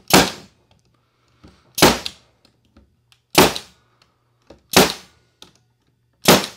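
Pneumatic stapler firing staples into wooden beehive frames, five sharp shots about a second and a half apart.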